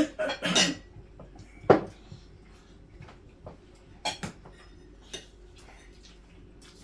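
Forks and spoons clinking and scraping on ceramic plates and bowls during a meal, with a sharp clink a little under two seconds in and a few softer clinks after it.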